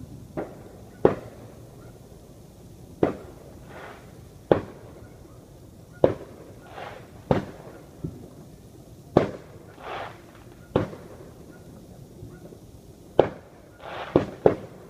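Fireworks going off: about a dozen sharp cracks at uneven intervals, with softer, duller bangs between them and a quick cluster of cracks near the end.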